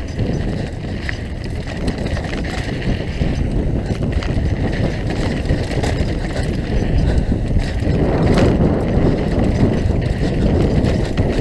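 Mountain bike ridden fast down a dirt trail: wind rushing over the helmet camera's microphone, tyres rolling on dirt and scattered rattles and clicks from the bike. It grows louder about eight seconds in.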